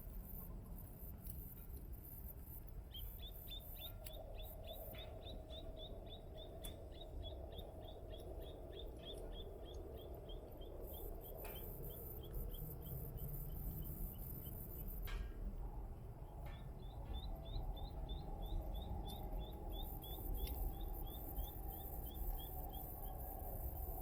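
A bird's rapid trill of high chirps, about six a second, that slows and fades away, heard twice. Beneath it, a small wood fire crackles with a few sharp pops and a steady low hiss.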